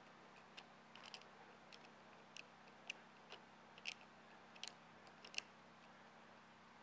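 Faint, irregular small clicks and ticks, about a dozen, from hands working a lifting strap and its metal hook as the strap is threaded and tightened.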